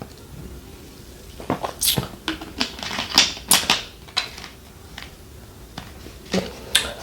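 Close-miked eating sounds: a quick run of clicks and smacks from about a second and a half in to about four seconds, then two more near the end.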